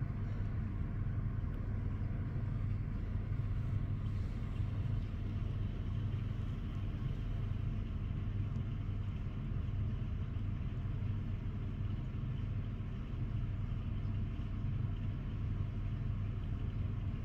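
Steady low rumble of distant city traffic, an even hum with no single vehicle standing out.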